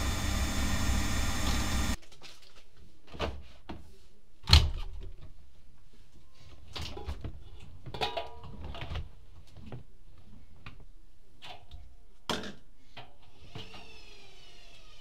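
Privileg Classic 30612 front-loading washing machine running steadily for about two seconds, then cut off. After that come scattered knocks and clicks from the open machine as wet laundry is pulled out of the drum by hand, with one loud knock about four and a half seconds in.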